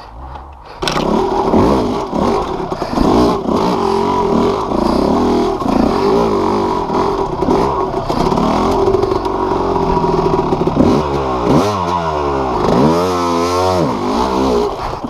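Yamaha YZ250 single-cylinder two-stroke dirt bike engine, fitted with a BeRad Freight Train performance kit, under hard riding: it comes in sharply about a second in and holds high revs, then rises and falls in pitch several times near the end as the throttle is opened and closed.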